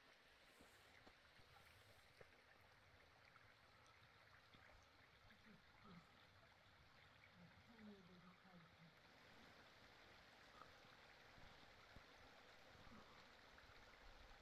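Near silence: faint, steady outdoor hiss, with a few faint, brief voice-like sounds around the middle.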